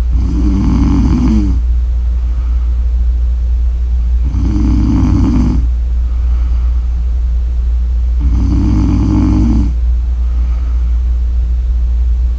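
A woman snoring in sleep: three snores about four seconds apart, each lasting about a second and a half, over a steady low hum.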